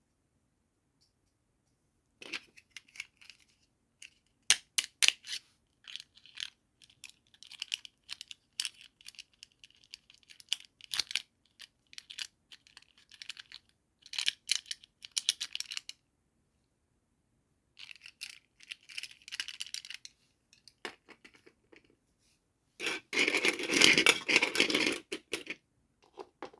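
Toy doll-set packaging being handled and opened: scattered crinkles, taps and small clicks in short clusters with pauses between, then a louder stretch of tearing that lasts about two and a half seconds near the end.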